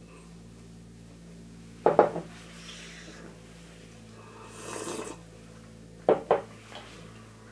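Two short clatters of dishes or tableware knocking together, about four seconds apart, over a steady low hum.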